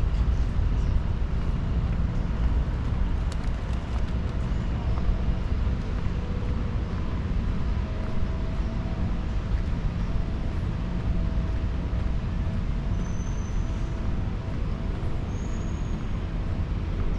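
Steady low rumble of city road traffic, with faint engine tones in it.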